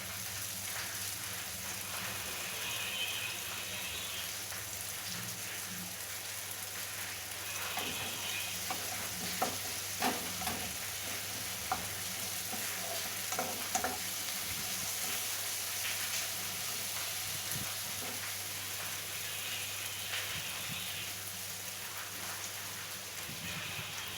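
Onions, tomatoes and green chillies sizzling steadily in hot oil in a kadai, with a few sharp clicks of a spatula against the pan about a third to halfway through.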